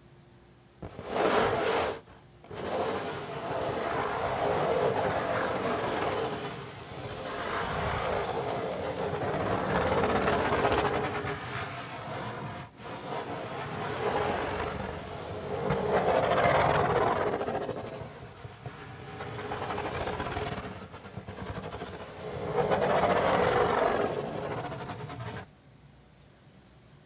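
Fingernails scratching in circles on the lid of a cardboard pizza box, a dense scratching that swells and fades in slow waves. It starts about a second in and stops near the end.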